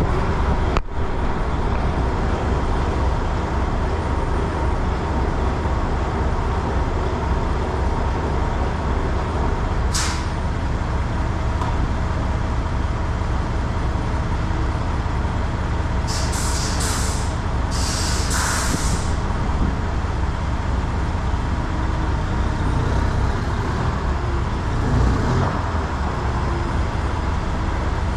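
Peterbilt truck's diesel engine idling steadily. Several short hisses of released air come from its air brake system: one about a third of the way through and a quick cluster of four about two-thirds of the way through.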